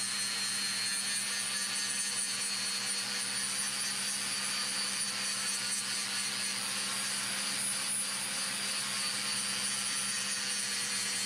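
Handheld angle grinder grinding steel along the edge of a steel-sheathed door, running steadily under load with an even, high whine.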